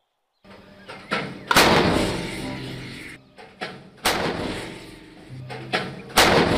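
Wheeled self-propelled howitzer firing: three loud booms about two and a half seconds apart, each rolling away for a second or two, with smaller bangs between them.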